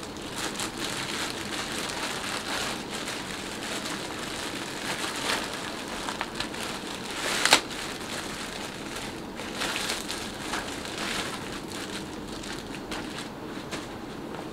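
Clear plastic bag crinkling and rustling as a cap is pulled out of it and handled, an irregular run of small crackles with one sharp, loud crackle about halfway through. A steady background hum runs underneath.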